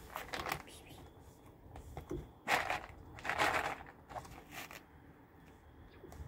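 Dry cat kibble sliding and rattling in a clear plastic tub as the tub is tilted, in a few short bursts, the loudest about two and a half and three and a half seconds in.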